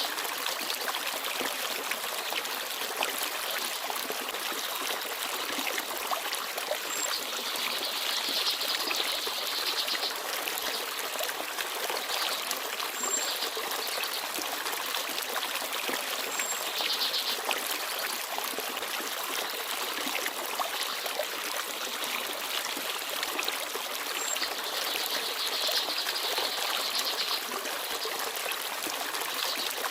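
Forest stream babbling and trickling steadily, with a few brief, high chirps from small birds now and then.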